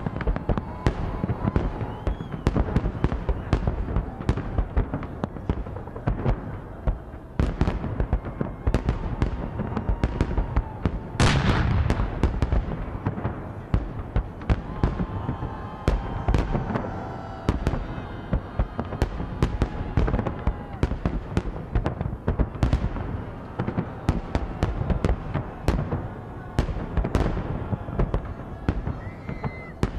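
Large fireworks display: a dense, irregular run of bangs and crackling bursts from exploding shells, with one especially loud, long blast about eleven seconds in.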